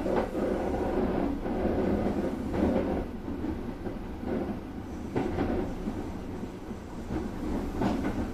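Kintetsu Urban Liner Plus (21000-series) express train running, heard from inside the driver's cab: a steady rumble of wheels on rail. Several sharp clacks come at uneven intervals as the wheels cross track joints.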